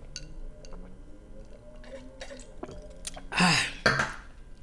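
Faint small clicks, then about three seconds in a woman's loud breathy vocal sound, falling in pitch, and a shorter second one just after, right after a sip of wine.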